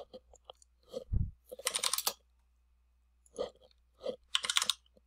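Typing on a computer keyboard in a few short bursts of keystrokes while a number is entered and Enter is pressed. There is a brief low thump about a second in.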